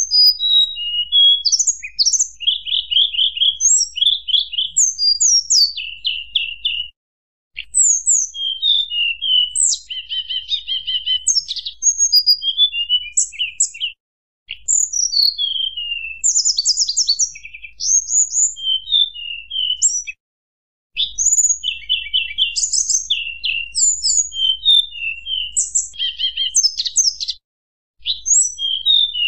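Tledekan gunung (hill blue flycatcher) singing a long, fast, varied song of high, flute-like whistled notes and quick trills, in stretches of about six seconds broken by short pauses. It is a bird-lure recording.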